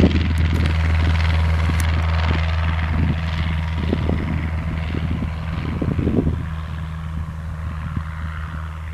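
Cessna 150's four-cylinder Continental O-200 piston engine and propeller running steadily, the sound slowly fading as the plane moves away.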